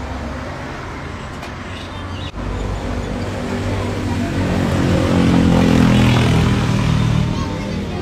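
A motor vehicle passing by: its engine hum builds from a few seconds in, is loudest near the end, then fades.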